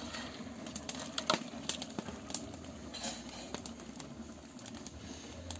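Wood fire under a large cooking pot crackling, with scattered sharp irregular clicks over a low steady rumble.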